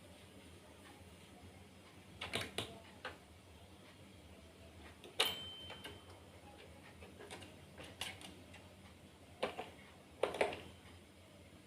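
Xylophone being tapped irregularly by a cat's paw: a few scattered taps, one of which rings a short, clear high note about five seconds in.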